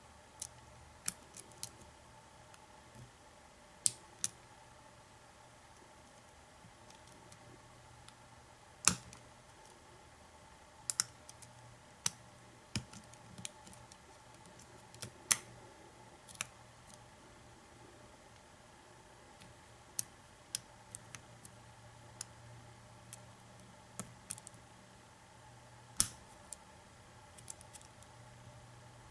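Scattered sharp metallic clicks, some in quick pairs, from a hook pick and pry-bar tension tool working inside an American 700 series padlock. A faint steady hum runs underneath.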